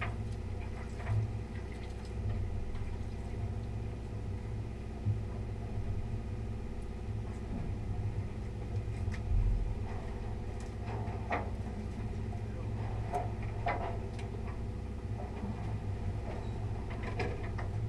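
A boat's engine running with a steady low hum, with a few faint knocks and clicks over it.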